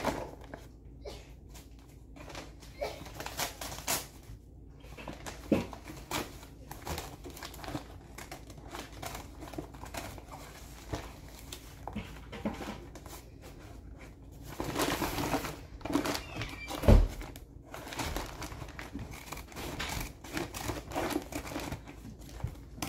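Scissors snipping through the top of a large paper bag of all-purpose flour, with the paper crinkling and rustling as the bag is handled. A dull thump comes about two-thirds of the way through.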